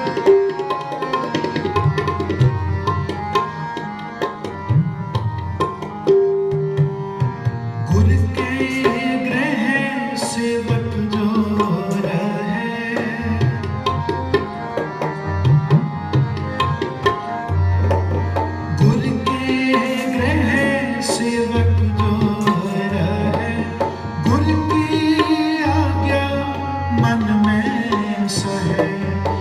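Tabla playing a steady rhythm under melodic accompaniment, with a voice singing kirtan from about eight seconds in.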